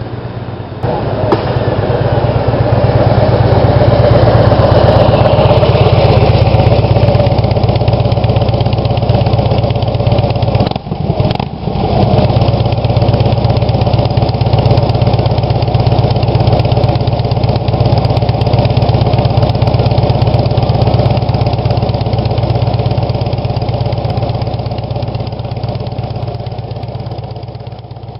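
Harley-Davidson V-twin running through Rinehart slip-on mufflers on stock headpipes, with a deep, loud exhaust rumble. It grows louder over the first few seconds as the bike pulls in, breaks off briefly about eleven seconds in, then settles to a steady idle.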